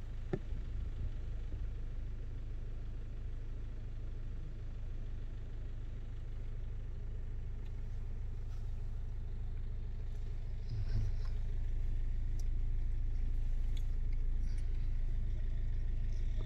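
Low, steady rumble of a car heard from inside its cabin, with a single soft knock just after the start and the rumble growing slightly louder about eleven seconds in.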